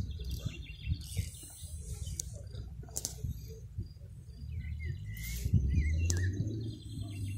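Small birds chirping in short repeated trills, with a sharp click about three seconds in and again near six seconds, over a low rumble that grows louder in the second half.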